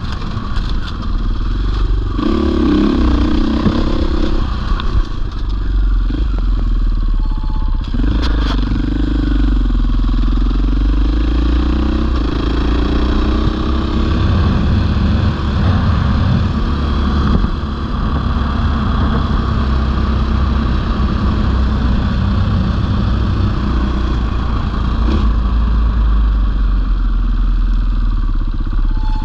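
450cc four-stroke single-cylinder enduro motorcycle being ridden hard off-road, the engine revving up and falling back again and again as the throttle is worked. There are a few sharp knocks about eight seconds in.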